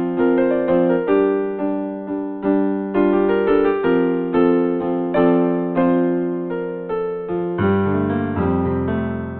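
Instrumental piano music: notes and chords struck about twice a second, each fading away before the next, with lower bass notes joining near the end.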